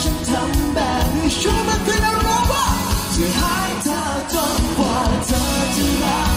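Live pop-rock band playing: a male vocalist singing over electric guitars, bass guitar and drums.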